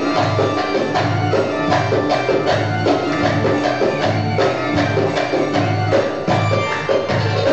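Egyptian Iskanderani folk music from a live band: a steady beat with a deep drum pulse, busy percussion and melodic instruments over it.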